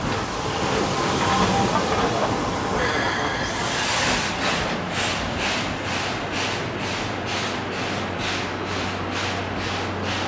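C11 steam tank locomotive running past with a hiss of steam, then its passenger coaches rolling by, the wheels clacking over the rail joints about twice a second.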